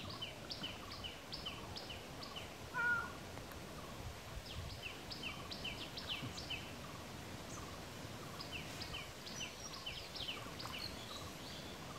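Animal calls: short high chirps repeated about three a second in bouts of a couple of seconds, with one louder, lower call about three seconds in.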